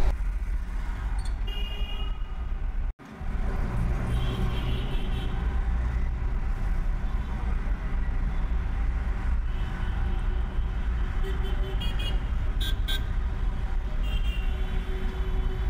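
Steady low background rumble, with a few faint metallic clicks and clinks of a socket wrench on bolts in a car's engine bay.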